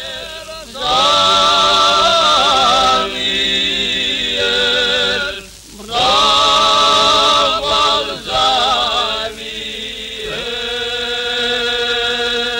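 Choral singing in long held notes with vibrato, sung in phrases broken by short pauses about five and a half and ten seconds in.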